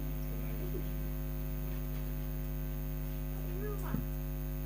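Old ceiling fan motor running on mains supply after repair, giving a steady electrical hum. A single short click comes about four seconds in.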